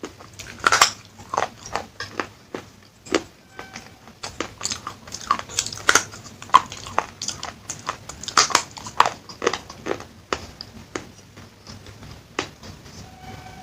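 Crunchy baked clay pieces from a claypot handi being bitten and chewed: a quick, irregular run of sharp cracks and crunches.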